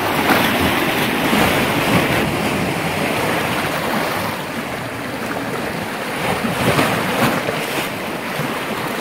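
Sea surf breaking and washing through shore rocks, a steady rushing of foaming water, with wind buffeting the microphone.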